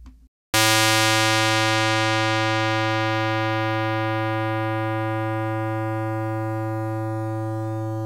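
Computer-synthesized tone from a discrete summation formula: a 110 Hz note with only odd harmonics, which gives it a square-wave feel, kind of like a harpsichord. It starts abruptly about half a second in, very bright at first. Its upper harmonics die away over the following seconds while the low partials hold and the whole tone slowly decays.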